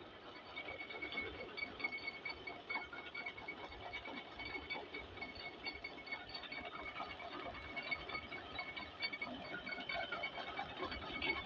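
Crackling, rustling of chopped corn silage being walked on and handled, with a high chirping repeated rapidly throughout.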